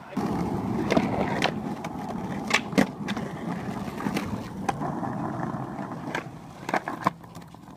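Skateboard wheels rolling over rough concrete and asphalt, broken by about ten sharp clacks and knocks of the board popping, landing and striking edges.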